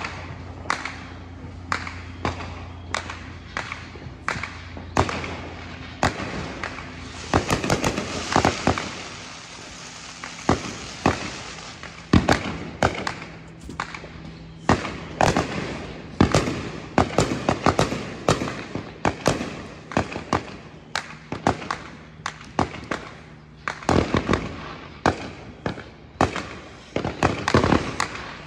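Many fireworks going off around a neighbourhood: a near-continuous barrage of bangs and pops, several a second, with a thicker crackling hiss from about eight to ten seconds in.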